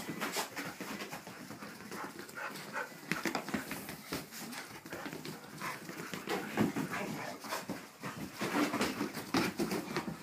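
Dogs wrestling in play, with paws scrabbling and scuffling on the rug and short dog vocal sounds mixed in.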